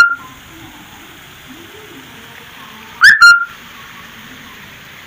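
A whistle blown in short, sharp blasts. The last blast of one ends just as the sound begins, and a quick double blast comes about three seconds in. A faint steady hiss runs under them.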